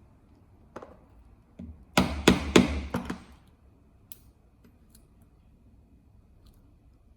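Leather stitching chisel being struck with a mallet to punch stitching holes through leather: two light setting taps, then a quick run of about five sharp strikes.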